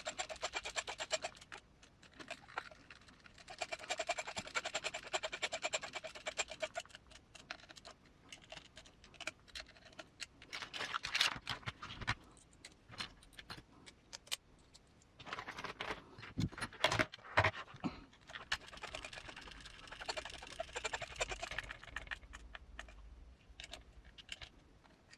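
Small machine screws being driven with a cordless electric screwdriver, which whirs in several short runs. Between the runs, small parts and tools click and knock as they are handled.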